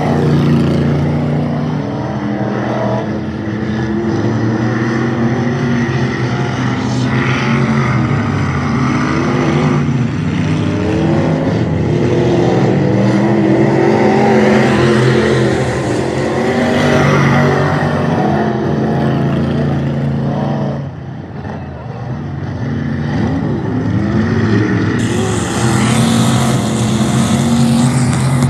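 Hot Mod dirt-track race cars' engines running hard around the oval, the pitch rising and falling as cars accelerate out of the turns and pass by. The sound dips briefly about two-thirds of the way through.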